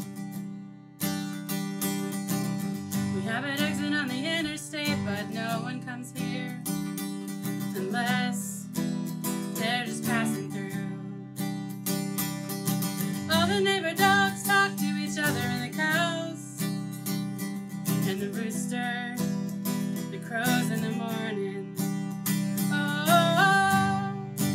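A woman singing a song in phrases over a steadily strummed acoustic guitar, a solo singer-songwriter performance.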